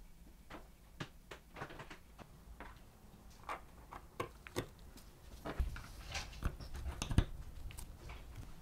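Irregular light clicks and taps of small parts being handled: a bent steel rod and a small wooden table-football goal with a string net, turned over in gloved hands and set down on the work surface. The taps come thicker and louder between about five and seven seconds in.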